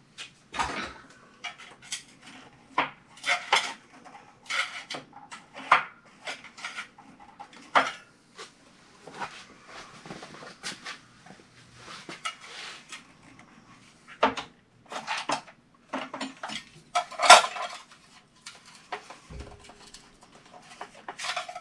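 Irregular metallic clinks and scrapes: a steel putty knife worked against the sheet-metal vent blower hood of a power-vent water heater, prying at its stuck seal. One louder clank comes late on.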